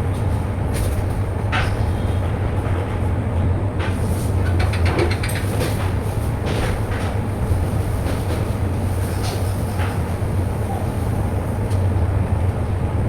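Industrial wet vacuum cleaner running steadily, with scattered clicks and knocks over its hum.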